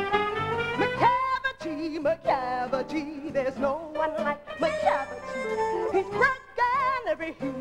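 Stage-musical pit band playing an instrumental dance section, led by a wailing line that slides and wavers with vibrato.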